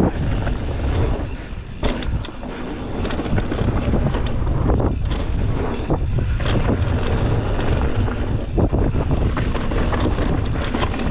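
Wind buffeting the microphone during a fast downhill mountain-bike descent, a steady low rumble broken by frequent sharp rattles and knocks from the bike over rough trail.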